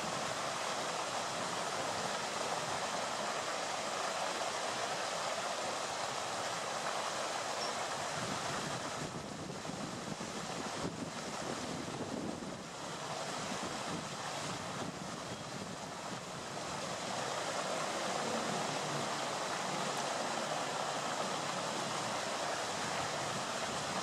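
Steady rushing of flowing water, easing slightly for several seconds midway.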